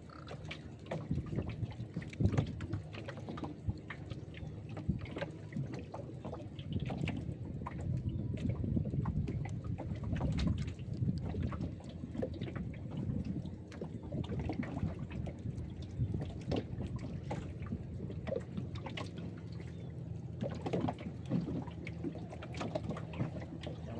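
River water lapping and splashing against a small boat's hull, with scattered light clicks and knocks as a fishing longline is pulled in by hand.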